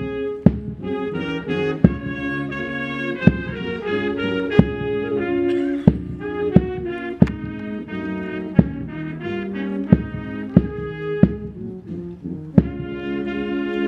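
Brass band playing a tune with trumpets and trombones over a drum struck at a steady beat.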